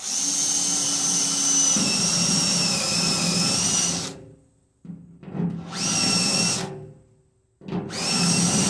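Cordless drill turning a stepped drill bit into an aluminum column, cutting a hole out to size for a rivet nut. It runs with a steady high whine for about four seconds, then in two short bursts.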